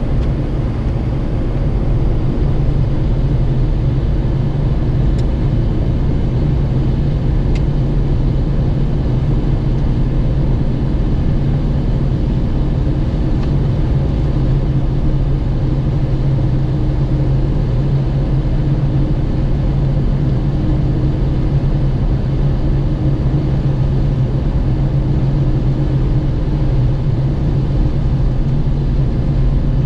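Jeep Wrangler cruising at steady highway speed: a continuous low drone of engine and road noise that holds level throughout.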